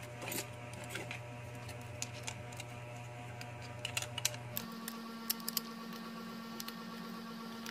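Light clicks and taps of a phone's plastic inner cover being handled and pressed into place over the mainboard, more frequent in the second half. Faint steady held tones run underneath and change to a different set about halfway through.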